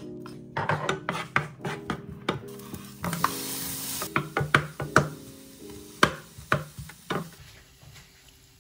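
Wooden spatula stirring and knocking against a nonstick frying pan as diced onion and tomato wedges are turned over, a run of sharp taps and scrapes with a brief hiss about three seconds in.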